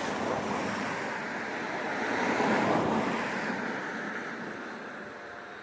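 Road traffic passing: a vehicle's tyre and engine noise swells to a peak about two and a half seconds in, then fades away.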